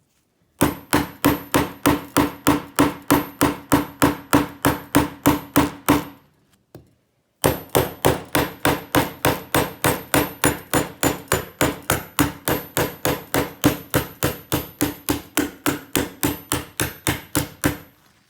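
Rapid, steady hammering at about four blows a second, in two long runs with a short pause between them.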